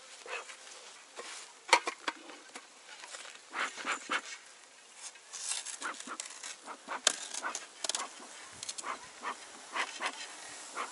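Bee smoker bellows puffing smoke over an opened beehive in a series of irregular puffs, mixed with rustling and small knocks of the hive cover cloth being handled; the smoke calms defensive bees before the frames are inspected. Honeybees buzzing faintly around the hive.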